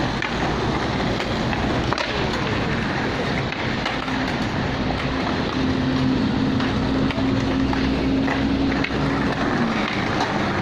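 Skateboard wheels rolling over stone paving, with scattered sharp clacks of boards striking the ground. A steady hum runs underneath from about four seconds in and drops in pitch near the end.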